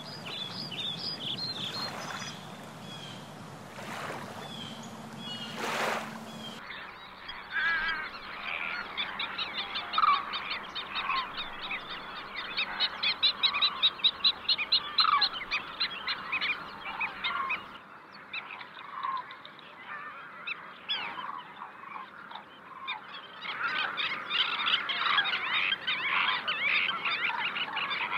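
A flock of birds calling, many short calls overlapping in a dense chatter that swells and thins as the ambience changes. Over the first few seconds a low steady hum lies underneath, with a few sharp knocks.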